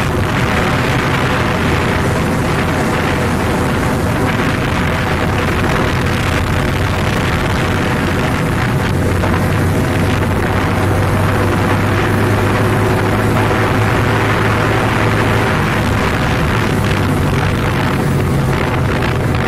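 Yamaha Vega underbone motorcycle's small single-cylinder four-stroke engine running at a steady cruise, heard from the rider's seat with heavy wind rush on the microphone.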